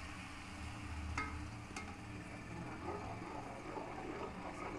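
Tomato purée sizzling in hot oil in a large aluminium pot while a spoon stirs it, with two light clicks of the spoon on the pot a little over a second in.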